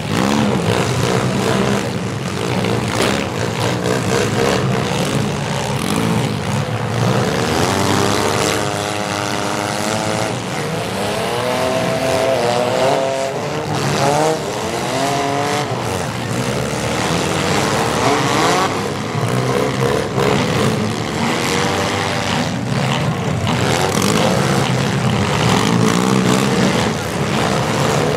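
Many compact demolition derby cars' engines running at once, several revving up and down, over a dense, steady engine din.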